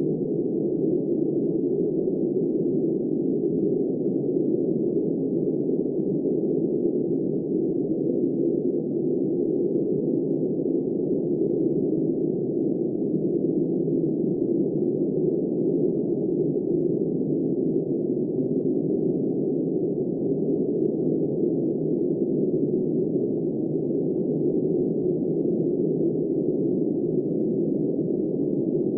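Steady, muffled, wind-like rushing noise, low-pitched and even in level throughout, with no gusts, rain or other events.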